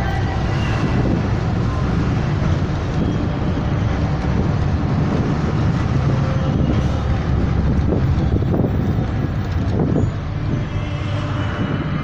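Steady engine and road noise of a moving vehicle, heard from inside, easing slightly about ten seconds in.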